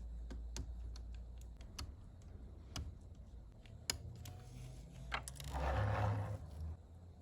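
Scattered light clicks and taps at irregular intervals. A short rushing noise comes nearly six seconds in, and a low hum fades out in the first two seconds.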